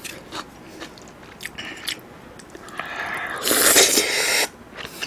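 Close-miked eating sounds: soft chewing clicks and smacks, then a loud slurp of about a second and a half as food is sucked in off the chopsticks, cutting off abruptly.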